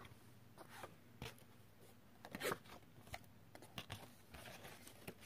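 Faint, scattered rustles and soft clicks of a sheet of card and twisted cord being handled as the cord is fed through the card; one slightly louder rustle about two and a half seconds in.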